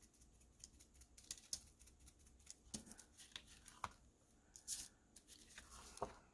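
Very faint, irregular small taps and rustles: a foam wedge sponge dabbing clear gesso through a plastic stencil onto card, and the stencil and card being handled.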